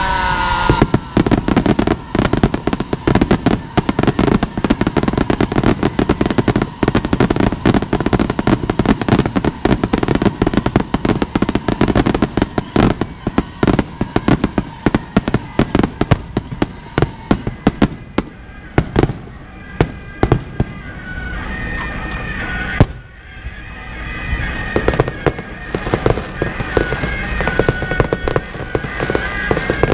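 Firecracker strings and fireworks going off: dense, rapid crackling of many sharp bangs, thinning to scattered louder reports in the second half, with one especially loud bang about two-thirds of the way in.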